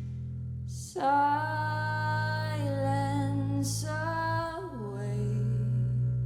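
Slow jazz ballad from a quartet of voice, double bass, alto saxophone and trombone. A low note is held throughout, and about a second in a gliding melody line enters, with audible breaths between phrases.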